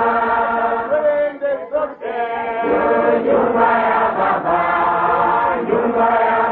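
A large congregation singing a praise song together in long held notes, with a short break between lines about one and a half seconds in.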